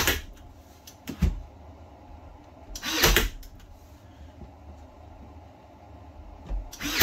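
Cordless 18-gauge brad nailer firing nails into a wooden window apron: three short shots, at the start, about three seconds in and near the end, with a lighter knock about a second in.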